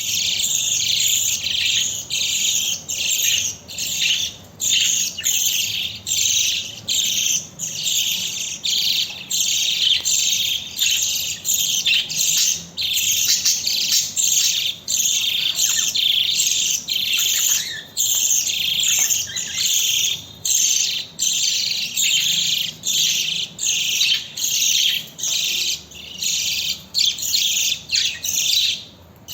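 Budgerigar chicks giving rapid, high-pitched begging chirps while being fed, a continuous pulsing chatter of about two calls a second with brief pauses.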